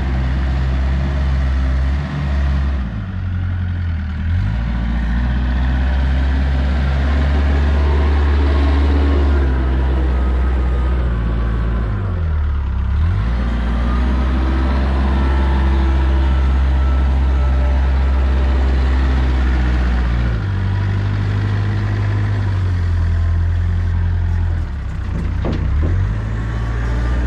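Kubota R520 compact wheel loader's diesel engine running under load while it scoops and dumps mulch. Its pitch dips and recovers several times as the operator works the bucket and changes direction.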